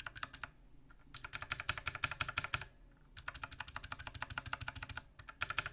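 Rapid keystrokes on a mechanical keyboard whose keys are partly fitted with homemade rubber-band O-rings to damp the bottoming-out clack: two fast runs of clicks, each about a second and a half long, with a short pause between, as keys with and without O-rings are compared.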